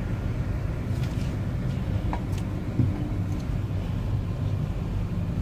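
Steady low rumble of background noise, with a few faint clicks over it.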